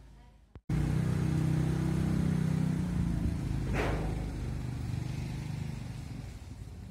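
A vehicle engine running close by, starting abruptly under a second in and fading gradually over the last few seconds. About four seconds in there is a short hiss.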